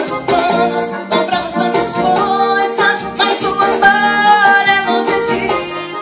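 A woman singing a Brazilian pop song to her own Yamaha electronic keyboard accompaniment of steady chords, holding one long sung note near the middle.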